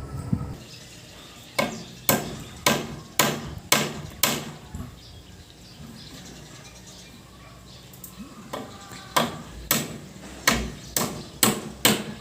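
Hammer blows: a run of six strikes about two a second, a pause of about four seconds, then another steady run of strikes.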